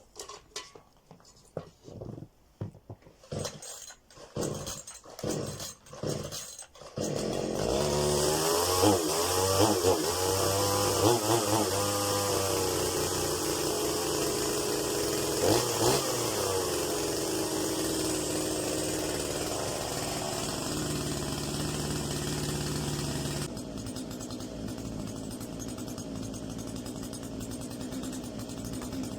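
Two-stroke chainsaw being pull-started: a series of uneven pulls and sputters, then the engine catches about seven seconds in. It is revved up and down several times, then keeps running steadily, a little quieter over the last few seconds.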